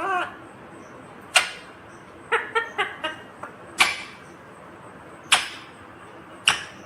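Ringneck parrot giving short, sharp single calls at intervals, with a quick run of short chattering notes in between.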